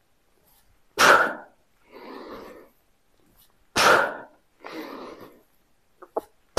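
A man's sharp, forceful exhales, twice, each followed by a softer inhale: breathing hard under the effort of pressing heavy dumbbells up during a set. A couple of faint clicks near the end.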